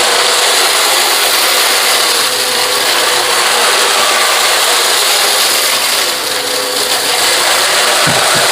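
Dirt Devil VersaVac upright vacuum running on high-pile carpet, with a steady rattle as dirt and kitty litter are sucked up. The sound dips slightly about six seconds in.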